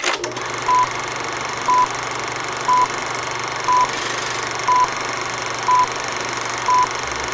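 Film-leader countdown beeps: a short, high beep once a second, seven times, over a steady hiss and a low hum. It opens with a click.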